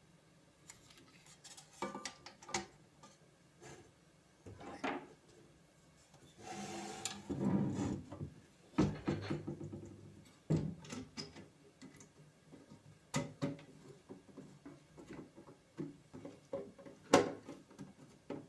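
Hard parts and tools being handled and fitted by hand: irregular clicks and a few sharp knocks, with a stretch of rubbing or scraping a few seconds in.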